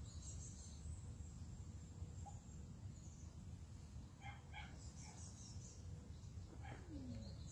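Faint outdoor background: a steady low rumble with a few short, faint bird chirps about four to five seconds in.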